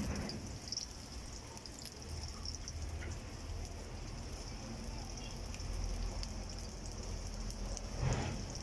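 Onions, garlic and black pepper frying in oil in a frying pan, sizzling and crackling steadily, with a brief louder noise near the end.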